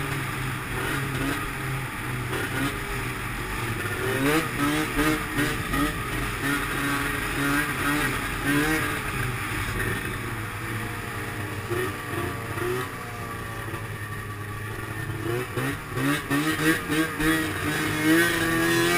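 Arctic Cat M7 snowmobile's two-stroke engine running under way, its pitch rising and falling as the throttle is worked. The revving is busiest about four seconds in and again near the end.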